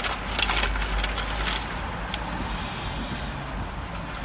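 Low, steady vehicle rumble heard from inside a van cab, a little louder in the first second and a half, with a few sharp crackling clicks over it early on.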